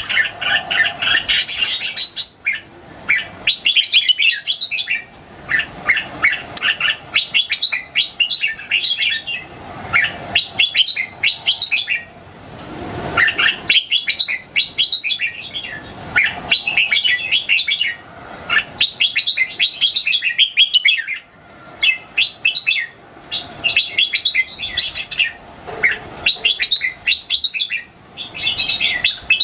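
A young red-whiskered bulbul singing: repeated bursts of quick, bright chirping phrases, each a second or two long with short gaps between them.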